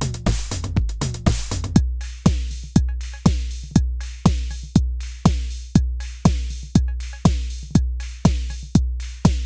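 Electronic drum machine beat: a steady kick about twice a second, its pitch dropping on each hit, with hi-hats over a low sustained bass. The pattern thins out about two seconds in.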